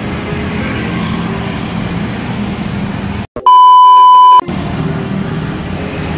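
Steady passing road traffic of cars and motorbikes. About three seconds in, the sound drops out suddenly and is replaced by a loud, steady TV colour-bars test-tone beep lasting about a second. Then the traffic noise resumes.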